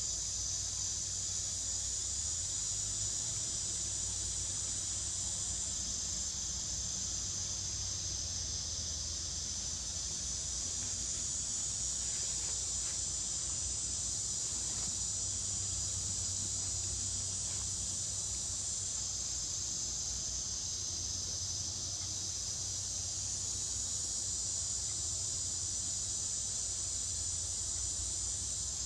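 Steady, high-pitched drone of a forest insect chorus, with a low rumble underneath.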